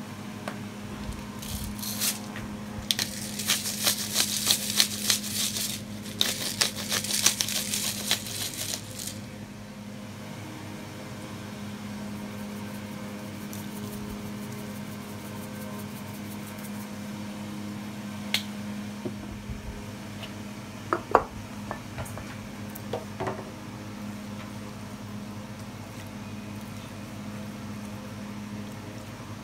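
Salt and pepper being dispensed over cut raw pork: a dense, rapid rattling in two spells over several seconds near the start. Later, raw pork pieces are handled on a plastic cutting board, with a few sharp clicks, over a steady low hum.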